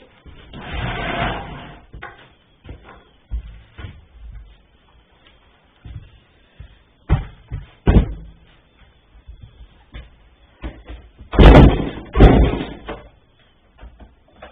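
Knocks and handling noises from a chainsaw being readied, then two loud, quick pulls on the recoil starter of a 1991 Poulan 2900 Farmhand two-stroke chainsaw near the end, turning the engine over without it catching.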